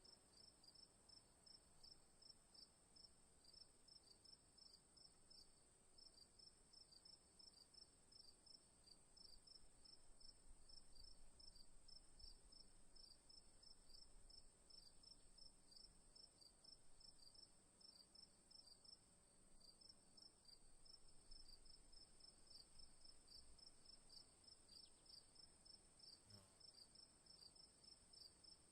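Crickets chirping faintly: short chirps repeated several times a second over a continuous high-pitched trill.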